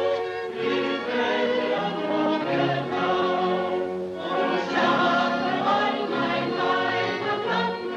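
Background music: a choir singing held notes in phrases, with a short break about four seconds in.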